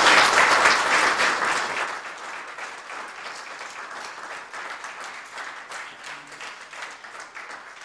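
Audience applauding at the close of a talk: loud, dense clapping that thins out about two seconds in and goes on more softly.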